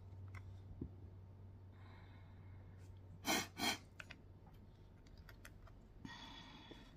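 Small clicks and crinkles of a metal E6000 glue tube being twisted and its cap and nozzle worked by hand, with two short loud hisses close together about three seconds in.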